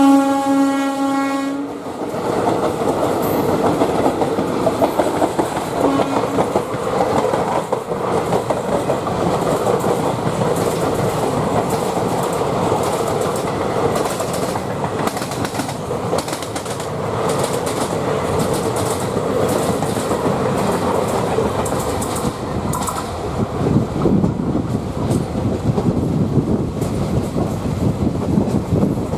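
An electric locomotive's horn holds one steady note and cuts off about two seconds in. An express train then runs through at speed, its coach wheels clattering over the rail joints in a continuous loud rumble.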